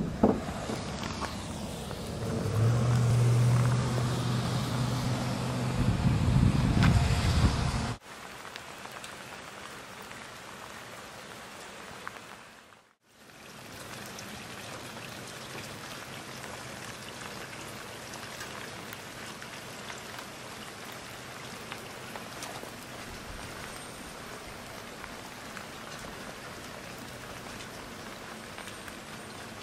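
A car running for the first eight seconds, with a steady low hum in the middle, then cutting off abruptly. After a brief silence, a steady even hiss of light rain.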